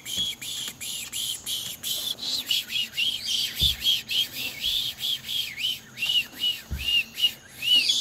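Harlequin macaw giving a quick run of short, high whistled chirps, each rising and falling, about two or three a second. Two soft low thuds come in the middle.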